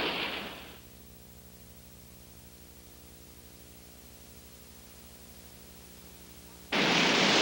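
Sea noise fading out within the first second, then a steady low electrical hum, and near the end a sudden cut in of loud surf and wind noise.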